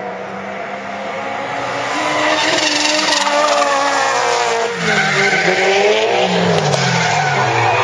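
Two drift cars sliding through a corner in tandem: engines revving up and down at high revs over continuous tyre squeal and skidding. It grows louder about two seconds in as the cars come closer.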